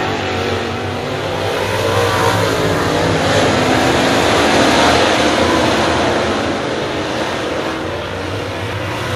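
A pack of dirt-track stock cars racing around the oval, several engines running together in one dense, loud drone. The noise swells to its loudest near the middle as cars pass close by and eases a little near the end.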